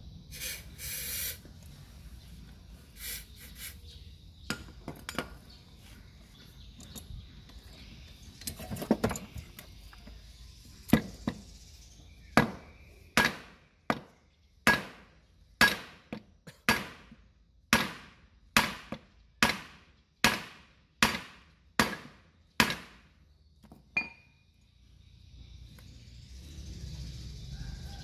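Scattered clinks of tools on metal, then a hammer striking metal in a steady run of about sixteen ringing blows, roughly one and a half a second, which stops a few seconds before the end.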